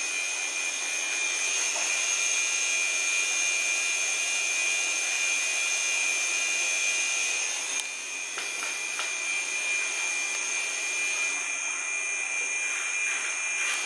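Electric tattoo machine running steadily as it works ink into skin: a high, even whine over a light hiss, dipping briefly about eight seconds in.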